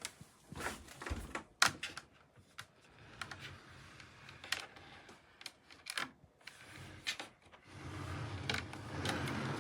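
Irregular sharp clicks and knocks, then a low steady hum that grows louder near the end.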